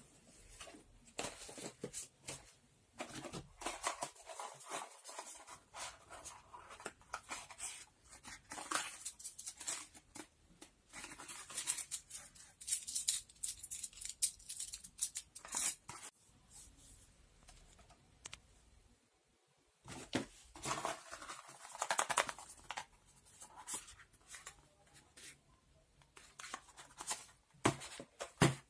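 Close-miked crisp handling sounds, irregular rustles, clicks and snips of things being handled, in bursts with two short pauses.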